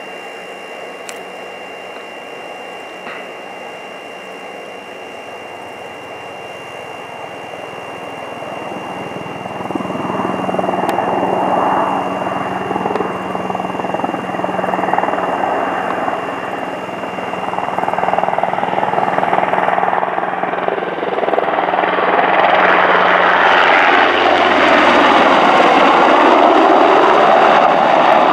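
Sikorsky UH-60 Black Hawk, a four-blade twin-engine helicopter, flying low and approaching: rotor and engine noise that starts faint, grows much louder about a third of the way in, and is loudest near the end as it passes close overhead.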